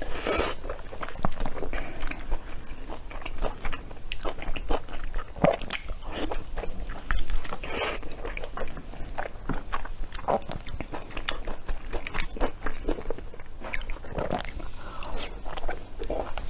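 Close-up chewing and biting of blood sausage coated in chili oil and garlic paste. Many short wet clicks come from the mouth.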